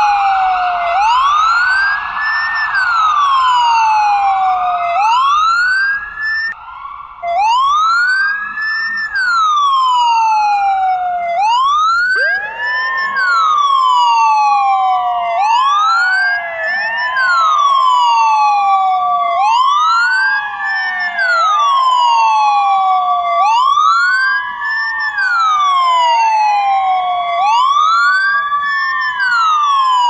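Ambulance siren wailing: a loud tone that sweeps up and falls back, about once every two seconds. From about twelve seconds in, a second siren tone overlaps it, holding briefly at a steady pitch before falling.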